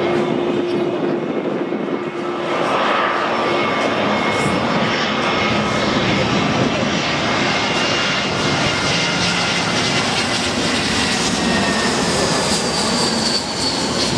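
Twin-engine jet airliner on landing approach with gear down, passing low overhead: a steady jet engine rumble and roar that grows louder about two seconds in. A fan whine drops slightly in pitch as the aircraft goes past.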